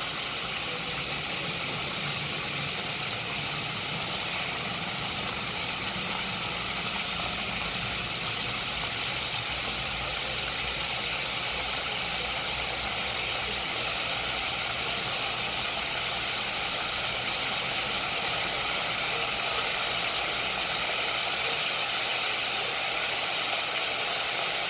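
Battered chicken wings shallow-frying in oil in a cast iron skillet: a steady, even sizzle.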